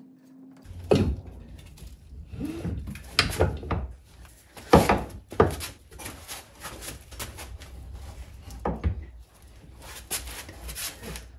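Irregular knocks, clunks and rubbing from a MerCruiser Alpha One outdrive being shifted by hand while its yoke shaft is guided into the bell housing and gimbal bearing. The loudest knocks come about a second in and just before five seconds.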